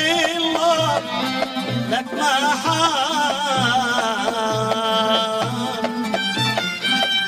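Yemeni Lahji folk song for the Markah dance: a man singing an ornamented, wavering melody over a steady hand-drum beat of about two strokes a second.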